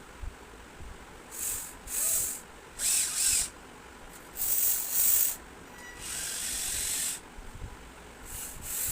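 Homemade RC excavator working in short spurts: a series of high, hissing, scraping bursts, each under a second, with a longer steady one a little past the middle.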